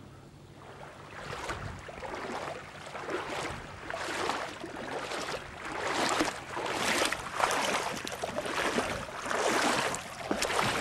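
Footsteps wading through shallow water, each step a splash, about one a second, starting about a second in.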